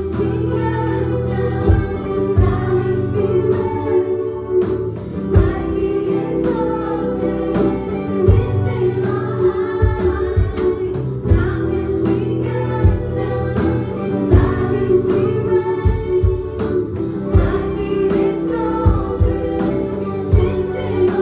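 Small worship band playing live: voices singing together, a woman's among them, over acoustic guitars and an electronic drum kit keeping a steady beat.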